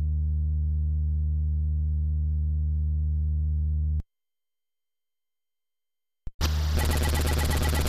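Commodore 64 SID chip sound effects: a low, steady buzzing drone that cuts off suddenly about four seconds in, leaving dead silence. Two seconds later there is a click, and a noisy hiss starts over the same low drone, with a quick run of high pips near the end.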